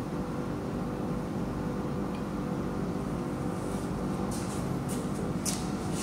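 Steady machine hum with several constant pitches over a low rumble. A few light clicks and rustles come about four to five and a half seconds in.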